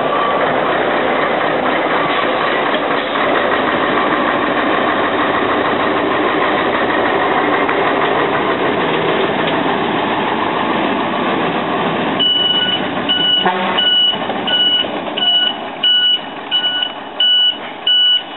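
Loud, steady diesel vehicle engine noise at a railway level crossing. About two-thirds of the way in a repeating two-tone electronic beep starts, about two beeps a second, as a truck crosses the tracks.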